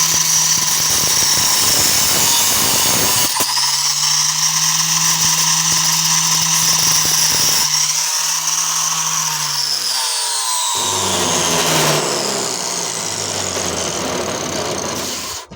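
Angle grinder with an oversized abrasive cutoff wheel cutting through a brass doorknob held in a vise, running loudly with a high whine. Its pitch sags and shifts partway through as the wheel bites, and it stops suddenly just before the end.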